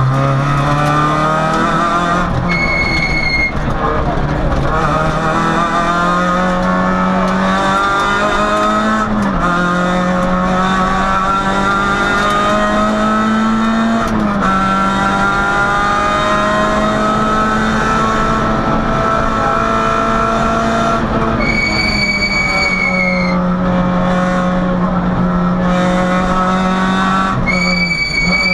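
Onboard sound of a Peugeot 106 rally car driven hard: the engine revs climb again and again, each climb cut short by a quick upshift. Brief high-pitched tyre squeals come through cornering about three seconds in, again past two-thirds of the way, and near the end.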